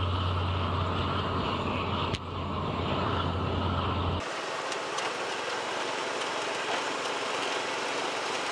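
Tractor-drawn flame weeder running, a steady machine noise with a strong low engine hum. About four seconds in it cuts to a thinner, hissier machine noise with scattered clicks from a tractor-mounted pumpkin harvester working a field.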